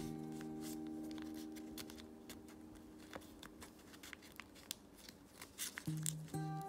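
Colour paper crinkling and creasing under the fingers as an origami model is folded, in many small crackles that grow busier in the second half. Soft background music underneath: a held chord fading away, with new notes starting near the end.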